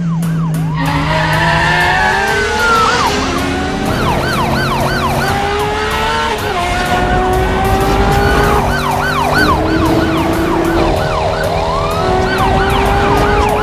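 Several police sirens sounding at once, quick yelp sweeps overlapping slower wails, over a car engine that climbs in pitch and drops back in steps as it revs through the gears.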